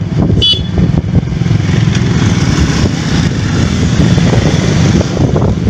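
Small motorcycle engine running steadily while riding, with wind rushing over the microphone.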